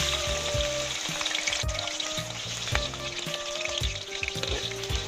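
Raw taro strips going into hot cooking oil in a pan. The oil bursts into a sizzle all at once and keeps frying steadily.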